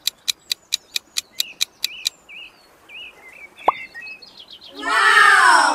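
Countdown-timer sound effect ticking about four to five times a second, stopping about two seconds in, over a bed of chirping birds. A sharp pop follows at the reveal, and near the end comes a loud, roughly one-second sound effect whose pitch rises and then falls.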